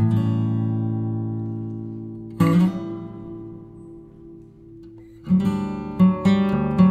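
Background acoustic guitar music: strummed chords left to ring out, one at the start and another about two and a half seconds in, then quicker strumming from about five seconds in.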